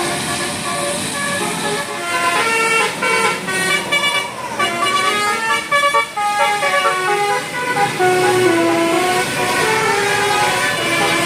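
A bus's Basuri telolet horn plays a quick tune of stepped notes, one after another.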